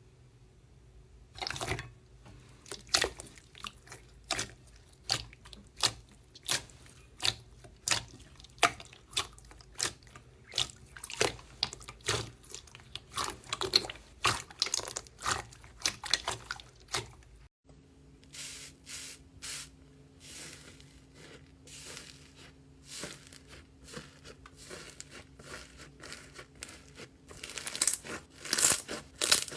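Slime being squeezed and pressed by hand, making wet popping and clicking sounds at an irregular pace. About two-thirds of the way through it cuts to another batch of slime, with softer pops that grow denser and louder near the end.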